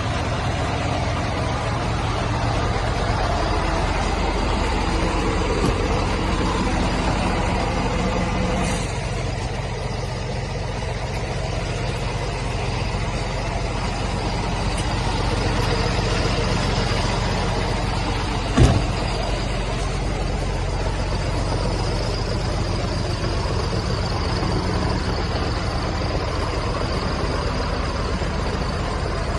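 Scania S500 truck's 13-litre inline-six diesel engine idling steadily, with a single sharp knock about two-thirds of the way through.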